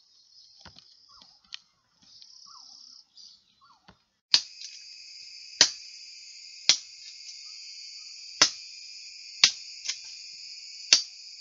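A cricket calling: a steady, high, shrill buzz that starts suddenly about four seconds in, after fainter broken buzzing. Loud sharp clicks cut through it roughly once a second.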